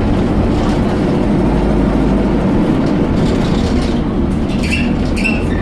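Dennis Dart SLF bus under way: a steady, low engine drone, with a few short rattles about five seconds in. The uploader cannot put a name to the strange noise this bus makes when accelerating.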